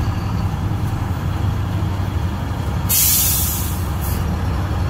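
Steady low rumble with a loud hiss that starts about three seconds in and lasts about a second, followed by a brief second hiss.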